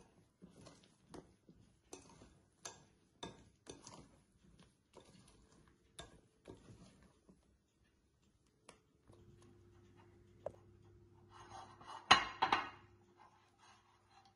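Metal fork scraping and clinking against a glass mixing bowl while stirring thick cake batter, in regular strokes about twice a second. Later a low steady hum comes in, and a louder, brief clatter follows near the end.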